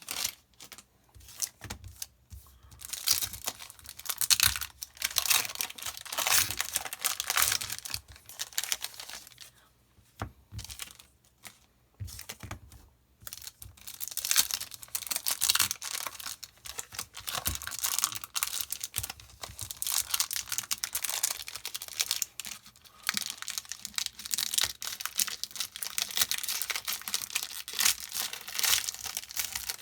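Foil Yu-Gi-Oh booster pack wrappers being torn open and crinkled by hand, in irregular bursts of ripping and rustling with short pauses.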